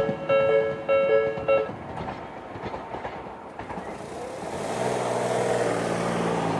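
Tobu Railway level-crossing electronic warning bell, the slow-tempo Tobu type-B sound, striking a two-note chime about twice a second. It cuts off about a second and a half in, which means the crossing warning has ended. A road vehicle's engine hum then builds from about four and a half seconds in.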